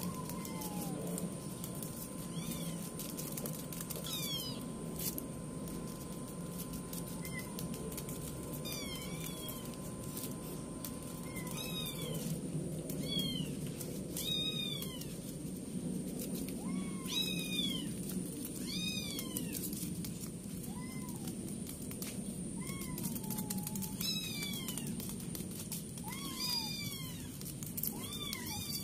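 Kittens mewing: short, high-pitched mews, a few at first and then one every second or two from about twelve seconds in, over a steady low hum.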